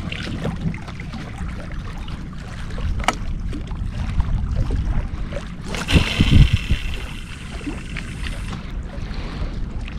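Wind rumbling on the microphone by the shore, with a single sharp click about three seconds in and a rushing hiss with a few low thumps from about six to eight and a half seconds in.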